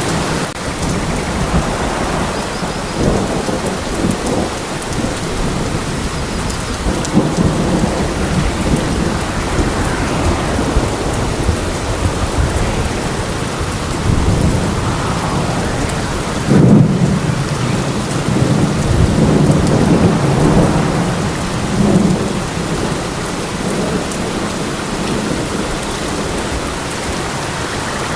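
Steady rain falling, with rolling thunder that rumbles up several times; the loudest rumble comes a little past halfway.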